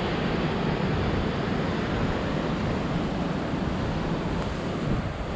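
Ocean surf breaking and washing over a rocky shore below, a steady rush of noise, with wind rumbling on the microphone.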